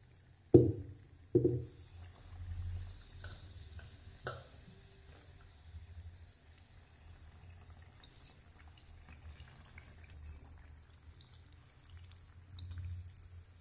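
Batter-coated potato vadas deep-frying in hot oil on a low flame: a faint, steady sizzle with scattered small pops and crackles. Two soft thumps near the start.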